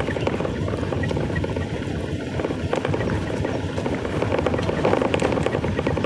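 A two-wheeler rolling downhill with the throttle closed: its engine runs low and steady under a constant rush of riding noise.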